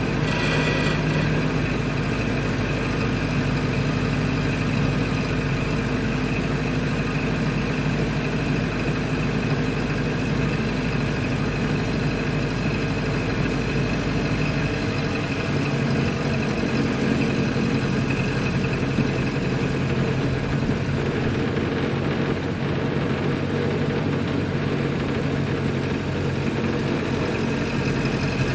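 Ford Model A's four-cylinder flathead engine running as the car is driven, a steady even note that changes pitch about halfway through.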